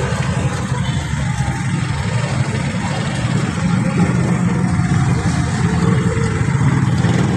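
Aluminium foil crinkling and rustling as it is pulled off and pressed by hand around meat, over a steady low mechanical hum.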